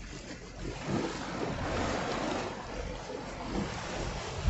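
Ocean surf washing against the jetty, swelling about a second in, with wind rumbling on the microphone.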